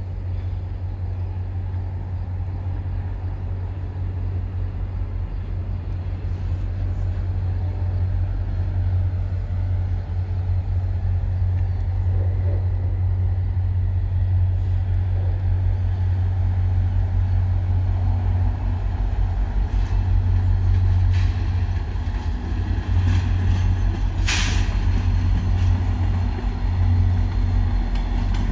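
VIA Rail F40PH diesel locomotive running, a steady low engine drone that grows louder as the train approaches and passes. A short sharp burst of noise cuts in about three-quarters of the way through.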